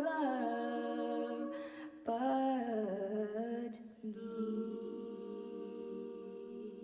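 An a cappella vocal group sings the closing phrase of the song, then from about four seconds in holds a final sustained chord that begins to fade.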